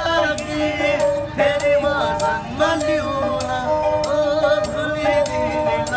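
Two Nepali sarangis, small bowed folk fiddles, played together while the men sing a folk song. The bowed strings hold a steady melody under the voice, with a light jingle on the beat about three times a second.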